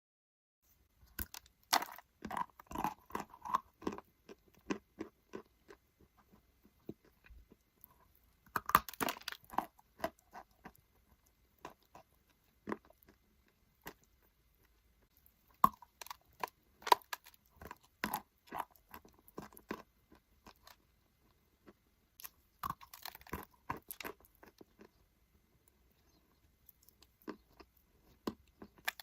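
A person biting and chewing pieces of Maria chalk, edible chalk, with sharp crunches in four bouts separated by quieter pauses.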